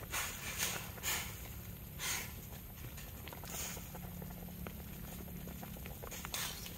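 A metal spoon stirring broth in a steel wok, with about half a dozen short scraping, sloshing strokes. A wood fire under the wok crackles faintly.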